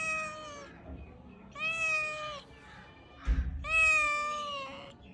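A kitten meowing three times, each meow a clear, fairly high, steady call lasting under a second. A short, low thump comes just before the third meow.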